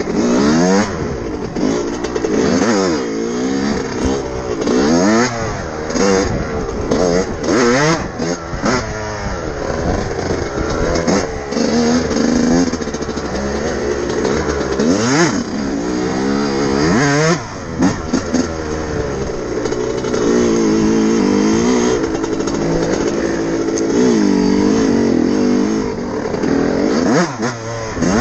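A 2000 Yamaha YZ125's two-stroke single-cylinder engine, heard from on the bike, revving up and dropping back again and again as it is ridden through the gears on a trail, with a steadier stretch of held revs about two-thirds of the way through. The rider takes its jetting to be spot on: it pulls cleanly through the revs.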